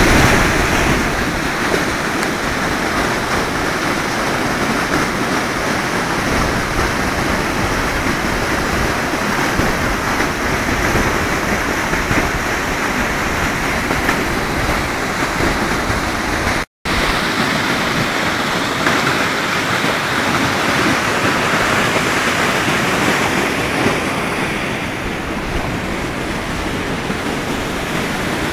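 River weir in flood: high floodwater pouring over the weir and churning below it, a loud steady rush of water. The sound breaks off for a split second about two-thirds of the way through.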